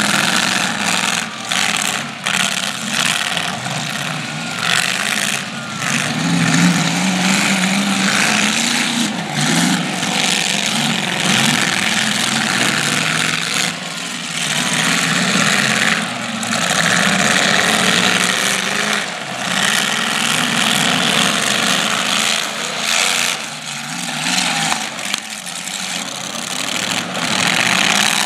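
Demolition derby cars' engines running and revving together, with the pitch rising and falling, and sharp bangs here and there as the cars collide.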